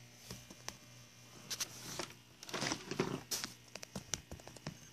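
Handling noise: scattered light clicks and taps with rustling as small plastic toy figures and the phone are moved over a fabric surface, densest in the middle. A faint steady low hum runs underneath.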